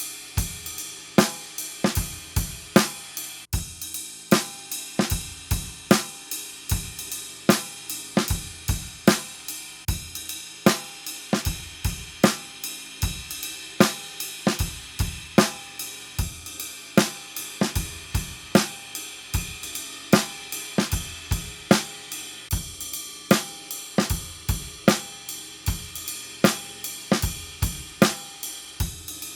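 Acoustic drum kit played with wooden drumsticks in a steady groove: bass drum and snare strokes under a constant wash of hi-hat and cymbals. There is a brief break about three and a half seconds in.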